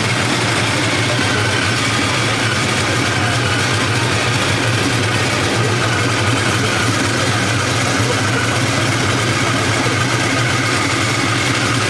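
Custom V8 engine of a classic car idling steadily, its exhaust note low and even.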